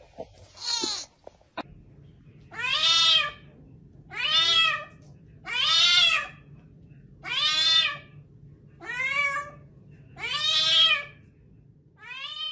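A cat meowing over and over: about seven long meows, each rising and falling in pitch, spaced about a second and a half apart, after one short, higher call near the start.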